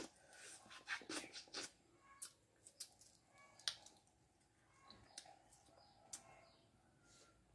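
Faint, scattered clicks and taps from eating and shelling boiled quail eggs: fingers and a small spoon working at the shells, with light mouth sounds of eating.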